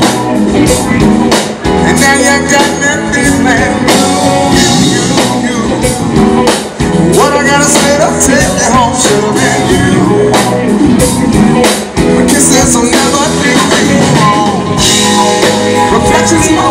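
Live blues-rock band playing loudly: a singer's voice over electric guitars, keyboard and drums, with a steady beat.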